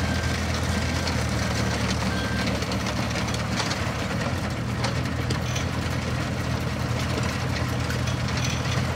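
A 2001 CAT 302.5 mini excavator's diesel engine running steadily as the machine tracks and turns, with a few clanks in the middle. An alarm beeps repeatedly for the first couple of seconds, then stops.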